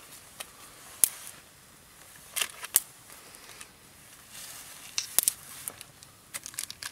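Wet log burning as a Swedish fire torch: scattered sharp pops and crackles over a faint hiss. The wood is damp, with water seeping out of its sides as it burns and smokes.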